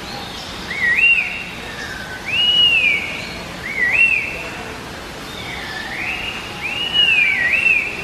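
Laughingthrush singing a loud, clear whistled song in separate phrases. Some phrases are a quick looping up-and-down note, others a long arched whistle. Near the end an arched whistle runs straight into a looping note.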